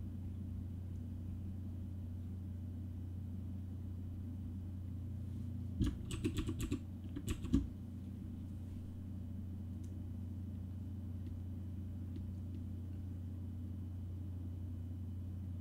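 A steady low hum runs throughout. For about a second and a half, six to seven and a half seconds in, there is a short flurry of computer keyboard clicks.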